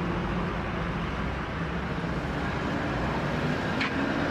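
Street traffic noise: a steady hum of passing and idling vehicle engines. A brief click comes near the end.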